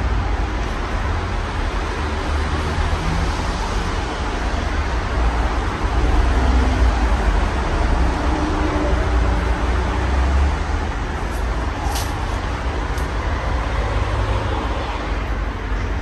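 Casablanca Four Seasons III ceiling fan running, heard as a steady rushing noise with a strong low rumble.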